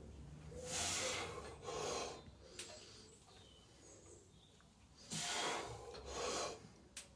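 A man breathing hard while he strains under a barbell. There are two quick heavy breaths near the start and two more about five seconds in.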